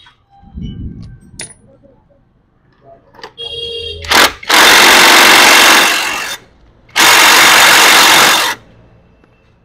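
Electric impact wrench run in two bursts of about a second and a half each, half a second apart, tightening a nut. Before them come a dull thump and a few light clanks of tools and parts.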